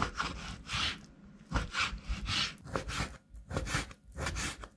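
Knife slicing raw beef on a cutting board: a series of scraping strokes through the meat, roughly two a second, with short knocks as the blade meets the board.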